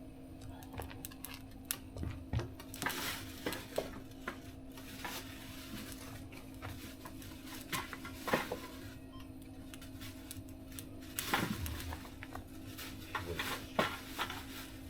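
Wood fire crackling in a metal mesh fire stove: scattered sharp pops and clicks, a few of them louder, over a steady low hum.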